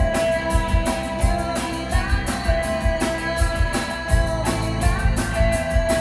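Live rock band playing: electric guitar and a drum kit keeping a steady beat, with a held sung or guitar line over it.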